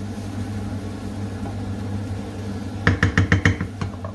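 A cooking utensil rapped quickly against a pan six or seven times about three seconds in, each knock ringing briefly, over a steady low kitchen hum.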